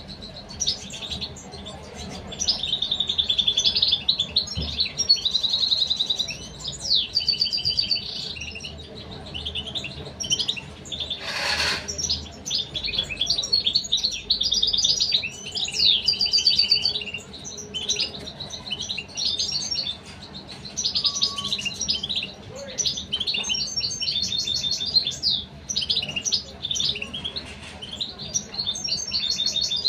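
European goldfinches twittering: runs of rapid, high chirps and buzzy trills in phrases with short pauses between them. A brief burst of noise comes near the middle.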